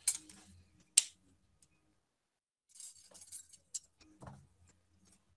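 Thin gauge-24 jewelry wire being straightened by hand, with soft rustling and a sharp metallic clink about a second in, then a few lighter clinks and a short knock a little after the middle.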